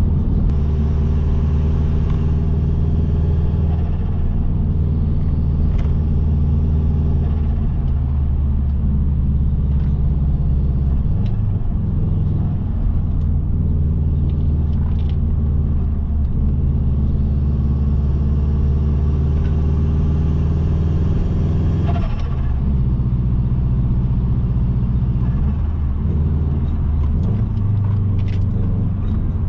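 Car engine running steadily with road noise, a low drone whose pitch shifts about 11 seconds in and again about 22 seconds in.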